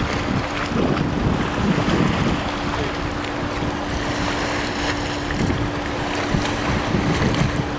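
Wind buffeting the microphone over small waves washing at the water's edge, with a steady engine hum underneath.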